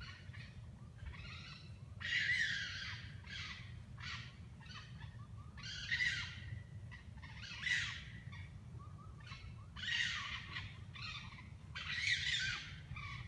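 Raccoons fighting, giving harsh screeching calls in repeated bursts every second or two, with the loudest squalls about two, six, eight, ten and twelve seconds in. A low steady rumble runs underneath.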